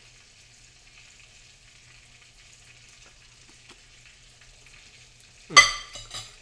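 Applesauce being spooned into a quarter-cup measuring cup: a faint steady hiss with a few soft clicks. About five and a half seconds in comes one brief, loud, pitched sound.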